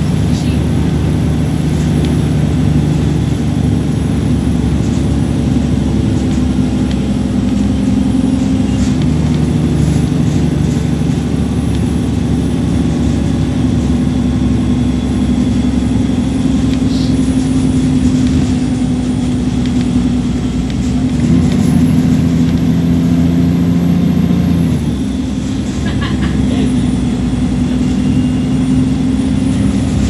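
Alexander Dennis Enviro300 single-deck bus heard from inside on the move: the diesel engine running under load with a high whine over it, the "hoover" sound, and the cabin rattling. About two-thirds of the way through, the engine note and the whine climb, then drop back.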